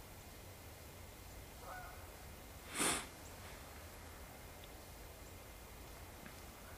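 A whitetail buck's single short, loud snort about three seconds in: an explosive blow of air through the nose, the alarm snort deer give when they sense danger.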